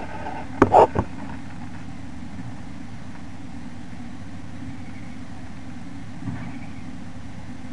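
Heavy construction machinery engine running steadily in the background, a low, even rumble. A few sharp knocks sound about a second in.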